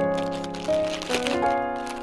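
Background music: soft held chords that change a few times.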